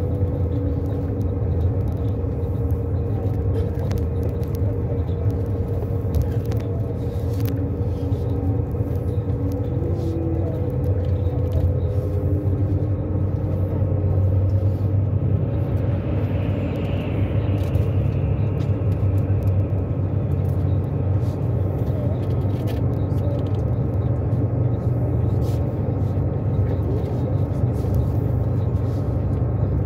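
A road vehicle driving, heard from inside the cabin: a steady low engine and tyre rumble, with a faint hum that sinks slowly in pitch over the first half.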